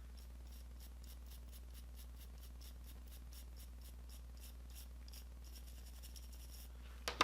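Faint hand sanding in quick short strokes, about three or four a second, rubbing down the hardened glue-and-baking-soda filler on a die-cast toy car body; a sharp click near the end.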